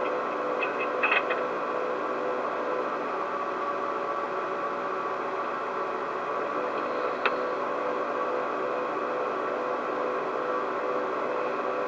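Steady machine-like hum and hiss of room background noise, with several constant tones in it. A few quick ticks come about a second in and one sharp click a little after the middle.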